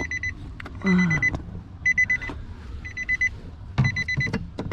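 A Nissan Titan's warning chime beeping over and over: short bursts of rapid high beeps, about one burst a second. A few clicks and knocks come between the bursts.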